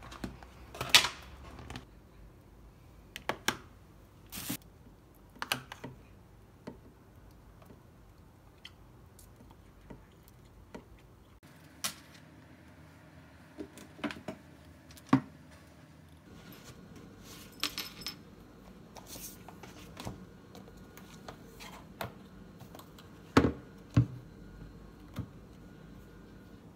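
Scattered clicks, knocks and light clinks of things being handled on a tabletop: a lunch bag and a ceramic dish with a fork. Two sharper knocks near the end come as a laptop is set down and opened.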